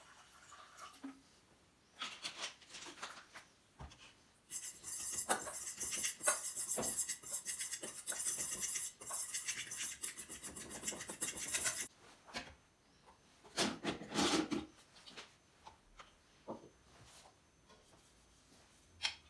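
Dry flour mix being stirred and scraped around a stainless steel mixing bowl: a steady rasping for about seven seconds, with a few light knocks before it and a short rustling burst about a second and a half after it stops.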